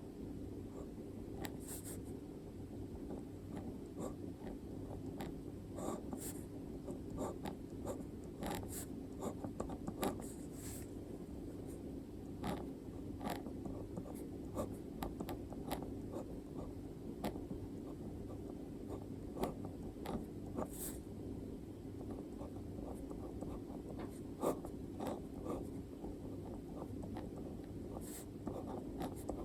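Handwriting on paper: a writing implement scratching out quick, irregular strokes with small ticks and scrapes, over a steady low background hum.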